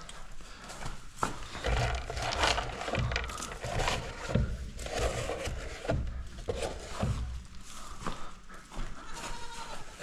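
Goats bleating in a barn amid irregular shuffling and knocking of movement, with a faint drawn-out call near the end.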